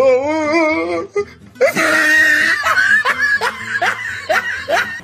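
A wavering, pitched voice-like sound for about a second, then a person laughing hard in quick rising bursts, about three or four a second.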